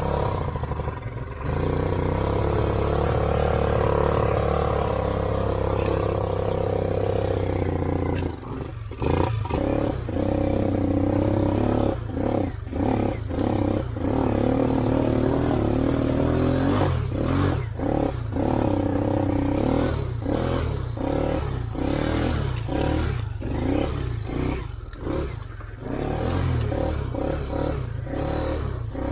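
Off-road motorcycle engine running and revving, the throttle opened and closed over and over, so the engine note keeps rising, falling and briefly dropping away through the middle part.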